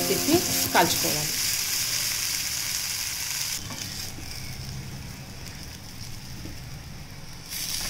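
Ragi dosa sizzling on a hot non-stick pan while a steel spatula turns and folds it. The sizzle is strongest for the first three and a half seconds, then dies down, and comes up again briefly near the end.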